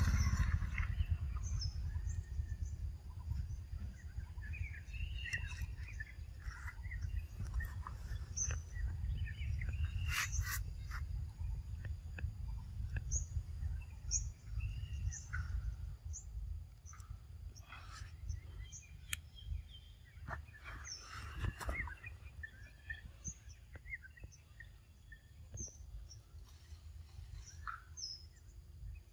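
Birds calling outdoors: short high chirps repeat every second or so, with other scattered bird calls. Under them is a steady low rumble, and there are a few sharp clicks partway through.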